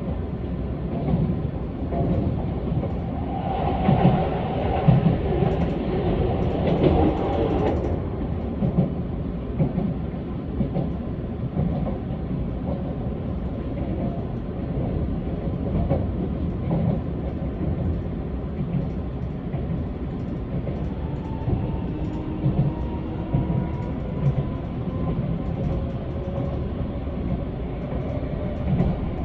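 Keisei AE-series electric train running at speed, heard from inside the car: a steady rumble with the wheels clicking over rail joints. A louder rushing noise swells about four seconds in and drops away about eight seconds in, and faint whining tones come in near the end.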